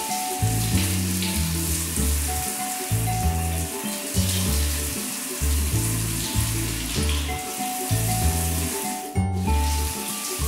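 Background music: a bouncy bass line of short notes under a steady hissing, shaker-like high layer, which breaks off for a moment about nine seconds in.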